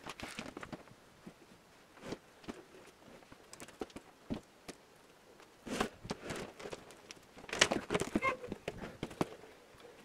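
Boots crunching on gravel, with scrapes and knocks as a heavy 8x8 timber post is slid down into a dug post hole and stood upright. Scattered short sounds, with the loudest cluster about seven and a half seconds in.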